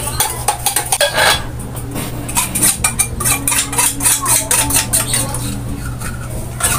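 Metal spoon scraping and clinking inside an opened tin can of milk, scooping the thick milk out into a stainless steel bowl, with many short scrapes and clicks.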